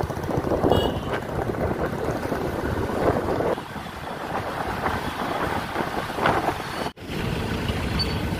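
Traffic and road noise heard from a moving vehicle, a steady rumble with wind buffeting the microphone. The sound breaks off for an instant about seven seconds in.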